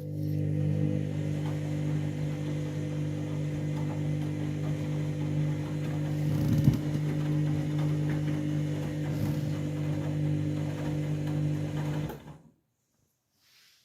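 Washing machine drain pump humming steadily at a fixed pitch as the wash water is pumped out at the end of the main wash, with a single knock partway through; it cuts off abruptly near the end.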